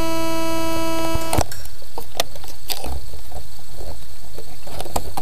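DJI Phantom quadcopter's motors idling on the ground with a steady hum, cutting off with a click about a second and a half in. Scattered clicks and knocks follow as the drone is handled.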